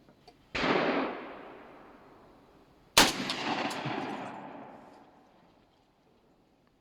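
Two shots from a Rock Island VR80 12-gauge semi-automatic shotgun loaded with 7.5 birdshot, about two and a half seconds apart. Each shot trails off in a long echo.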